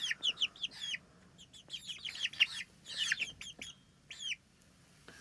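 Several young chicks peeping: short, high calls that slide downward. They come in a quick run at first, then scatter, and die away about four seconds in.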